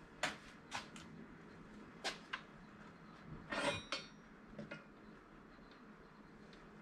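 Scattered clicks and knocks of tools and metal parts being handled on a welding bench, with a longer, louder clatter about three and a half seconds in.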